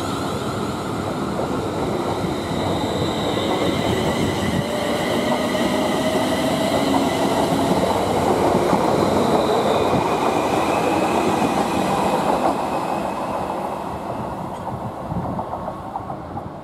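Class 360 electric multiple unit running along the platform, with the rumble of its wheels on the rails and a whine that rises in pitch. It is loudest a little past the middle and fades near the end as the train draws away.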